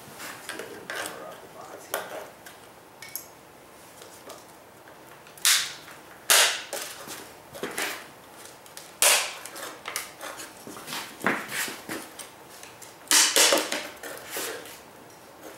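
Sharp knocks and short scrapes of wood at irregular intervals as a hand tool works at the wooden bee package and hive parts. The loudest bursts come about five to six seconds in, at nine seconds, and near the end.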